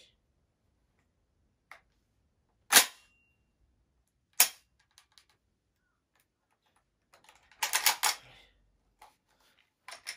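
Sharp metallic clacks from a shotgun's action being worked by hand: one loud clack about three seconds in with a brief ring after it, another about a second and a half later, then a quick run of clicks and rattles near the end.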